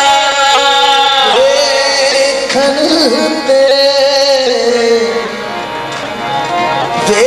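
Qawwali music: harmonium holding sustained notes under a male voice singing a long, ornamented line, with a few sharp strokes.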